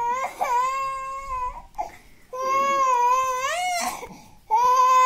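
A toddler crying in an angry tantrum: three long, high-pitched wails, each about a second and a half, with short breaths between them.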